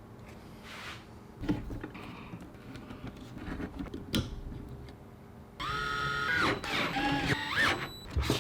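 Hands handling PC parts: scattered light clicks and knocks, then about five and a half seconds in a louder squeaking scrape whose pitch slides up and down.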